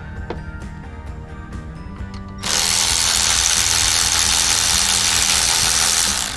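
Background music, with a loud steady hiss cutting in about two and a half seconds in and running for nearly four seconds before it stops.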